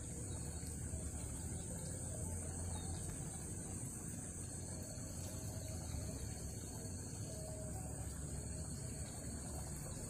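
Steady high-pitched insect drone, with a low rumble underneath.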